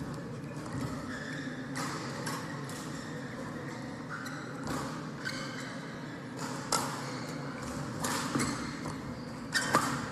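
Badminton rally: rackets striking the shuttlecock with sharp cracks every second or two, the loudest near the end, with short high squeaks between the hits, echoing in a large sports hall.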